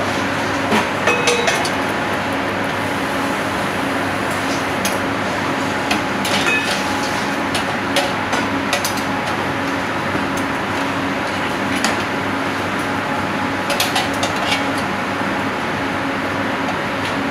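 Scattered light clinks of a metal utensil against a ceramic plate and a small steel bowl while a dish is garnished, in small groups, over the steady hum of kitchen ventilation.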